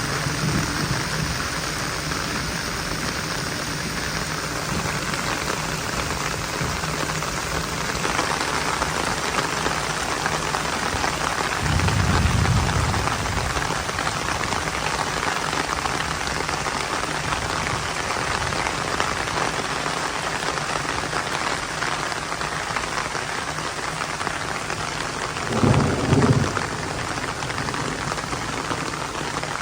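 Heavy rain falling steadily, with two short rumbles of thunder: one about twelve seconds in and a louder, doubled one near the end.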